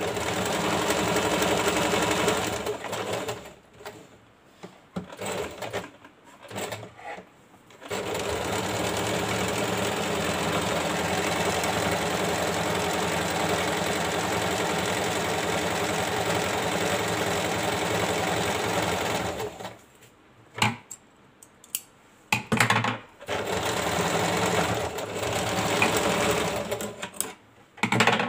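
Compact electric sewing machine stitching lace trim onto fabric. It runs in spurts: a short run, several brief bursts, then a long steady run of about ten seconds. After a pause with a few clicks it runs once more near the end.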